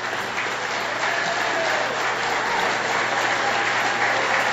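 Audience applauding, growing louder about a second in and then holding steady.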